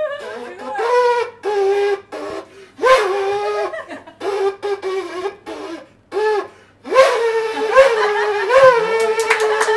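A seashell blown like a horn: a string of short toots on one note, several bending up at the start, then one long note held near the end. The pitch wobbles, as it is hard to blow a true note on a shell.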